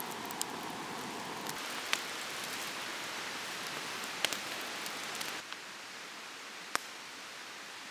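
Campfire crackling: a steady hiss with scattered sharp pops. About five and a half seconds in it drops to a quieter steady hiss, with one more pop.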